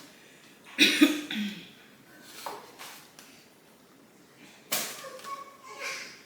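A short cough about a second in, followed by a few quieter knocks.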